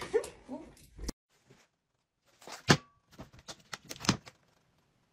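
A few short, sharp clicks and taps with near-silent gaps between them: one click about a second in, then a small cluster more past the halfway point.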